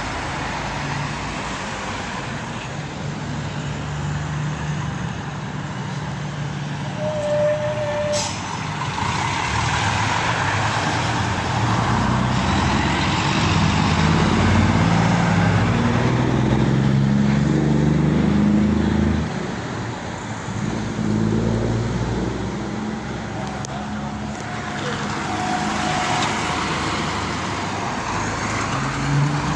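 Diesel truck engines and other road vehicles driving past. In the middle, a tractor unit pulls past close by, its engine note climbing as it accelerates, then dropping away suddenly about two thirds of the way through.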